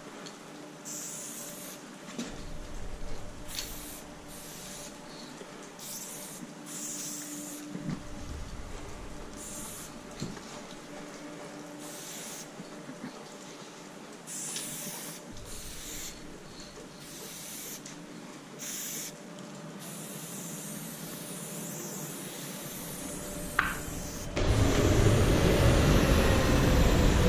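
Spray paint can hissing in short bursts as graffiti outlines are sprayed with a skinny outline cap on a can of Montana Black. About three seconds before the end, a much louder rushing noise with a slowly falling tone sets in and drowns it out.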